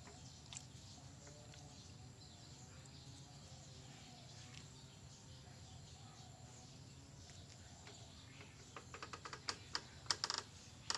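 Faint, steady outdoor background noise, broken near the end by a quick run of light clicks and taps lasting about two seconds.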